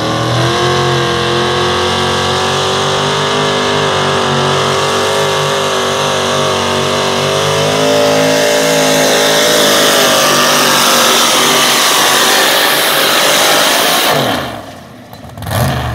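Super-modified four-wheel-drive pulling truck's Hemi engine at full throttle, holding high, nearly steady revs as it drags the weight-transfer sled. About fourteen seconds in the throttle is cut and the engine drops away, with one short blip of revs just before the end.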